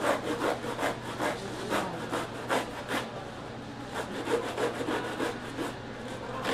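A long tuna-cutting knife sawing back and forth through a whole bluefin tuna's skin and flesh behind the head, in repeated rasping strokes about two to three a second, with a short pause a little past halfway.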